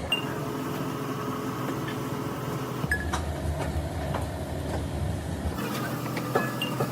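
A steady engine-like running hum with several sharp metal clinks and taps over it, as of tools on metal; a deep rumble under it cuts out abruptly twice.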